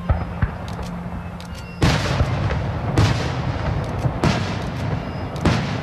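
Fireworks shells bursting: a couple of small bangs at the start, then a loud boom a little under two seconds in, followed by three more sharp bangs over a continuous rumble and crackle.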